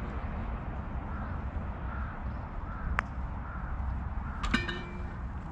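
A sharp click of a park golf club striking the ball about three seconds in. About a second and a half later comes a louder knock with a brief ringing tone.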